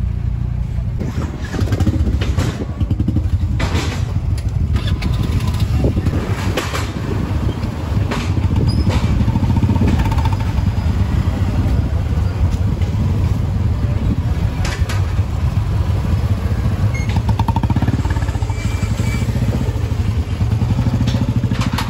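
Several motorcycle and scooter engines running at idle close together, a steady low rumble, with occasional knocks and people talking in the background.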